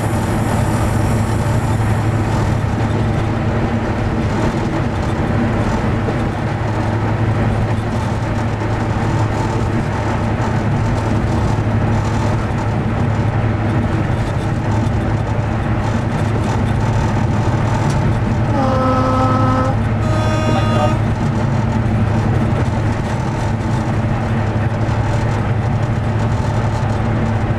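Class 55 Deltic diesel locomotive's Napier Deltic two-stroke engines running steadily under way, heard from inside the cab as a loud, even drone with a strong low hum. About two-thirds of the way through, the two-tone horn sounds: a lower note, then a higher note, each about a second long.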